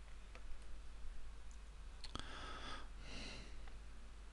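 A few faint computer mouse clicks, then about two seconds in a sharper click followed by two short sniffs through the nose, over quiet room tone.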